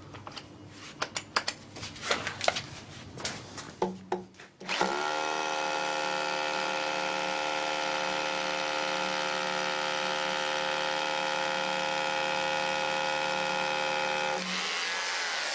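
Scattered clicks and knocks of tool handling, then a Metabo KHE 2443 800-watt SDS rotary hammer starts about four and a half seconds in and runs steadily, drilling with a 20 mm bit in rotary hammer mode, for about ten seconds before it stops and winds down near the end. It copes without trouble.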